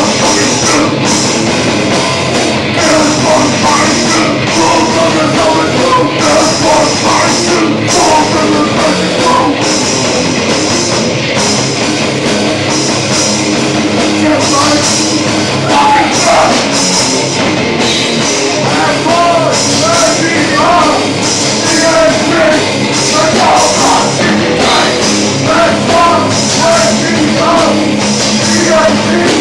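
Live death metal/hardcore band playing at full volume: distorted guitars, bass and a drum kit with steady cymbal hits. Vocals come in about halfway through.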